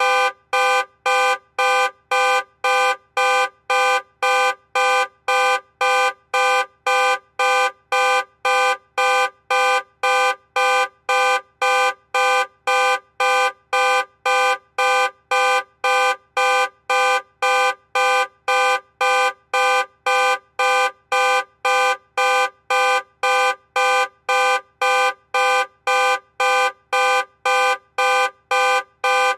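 Car alarm sounding the car's horn in short, even honks, about two a second, each honk one steady pitched blare at the same loudness.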